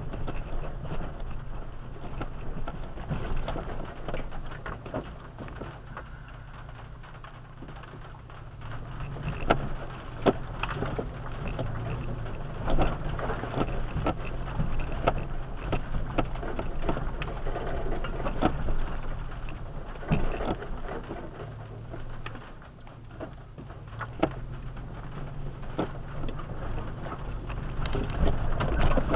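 4x4 SUV crawling along a rough dirt trail: a steady low engine hum with irregular clicks and knocks of gravel and rocks under the tyres and against the body.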